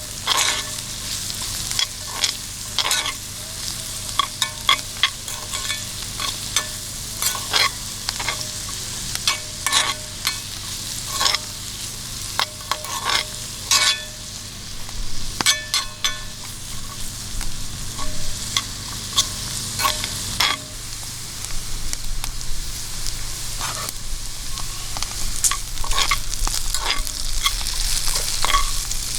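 Food frying in hot oil in a pan, a steady sizzle broken by frequent sharp pops and crackles.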